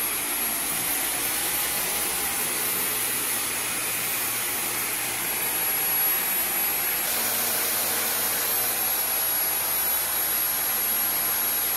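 Dyson V15 Detect cordless stick vacuum running over carpet in auto mode. Its high motor whine steps up about a second in, drops back around the middle, then rises and falls once more. The changes come from the particle sensor detecting dust and boosting the suction power.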